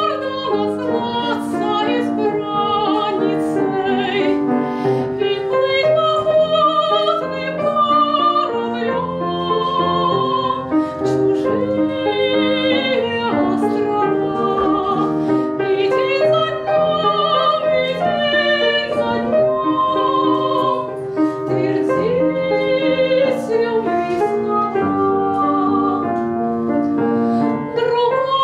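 A woman singing a Russian romance in a classical, operatic voice with a wavering vibrato, accompanied by an upright piano.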